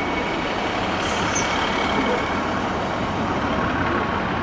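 Peppercorn A1 Pacific steam locomotive 60163 Tornado moving slowly, heard from a distance as a steady hiss of steam over a low rumble.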